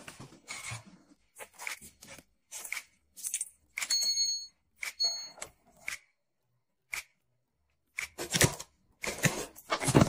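A run of short handling sounds: light rustles and taps with pauses between them, and two short high electronic beeps about four and five seconds in. Near the end comes louder crinkling as a plastic wrapper or patch backing is peeled and torn open.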